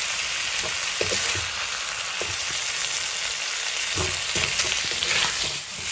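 Pork, potatoes and spice masala sizzling as they fry in a metal kadai, stirred now and then with a metal spatula that scrapes the pan.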